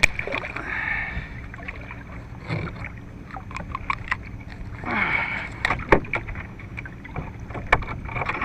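Small waves slapping against a fishing kayak's hull with wind on the water, and scattered sharp knocks and clicks as a small hooked shark is handled and unhooked on the deck, the loudest cluster about five to six seconds in.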